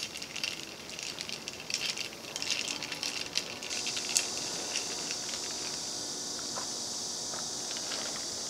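Ice cubes clinking and rattling in a glass as an iced latte is stirred with a straw, a quick run of small clicks for the first few seconds. After about four seconds the clinking gives way to a steady high hiss.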